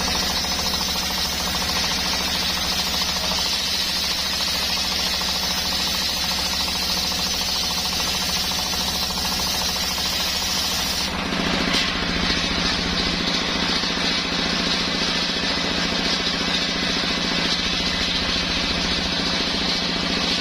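Engine-driven homemade circular sawmill running steadily while sawing coconut wood. About halfway through, the sound changes abruptly: the high hiss falls away and the engine's low note grows stronger, as the load on the saw changes.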